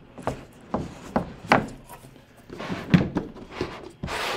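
Cardboard product packaging being handled and opened: scattered light taps and knocks with a few rubbing, sliding scrapes of cardboard.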